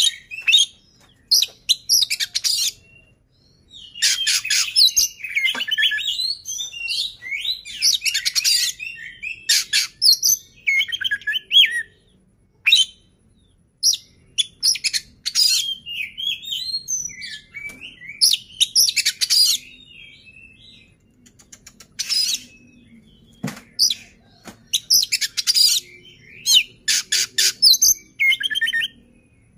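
Male Oriental magpie-robin singing: phrases of a second or two made of rapid, varied whistles, chirps and trills, high in pitch, broken by short pauses and a few longer lulls.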